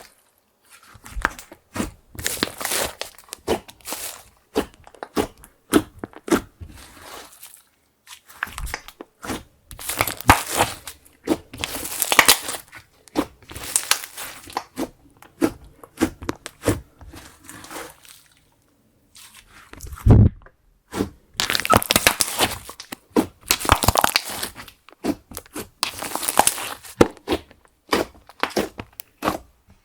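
Slime being squeezed, folded and pressed by hand: wet crackling and popping clicks in bursts of a second or two with short pauses between them, and one low thump about two-thirds of the way through.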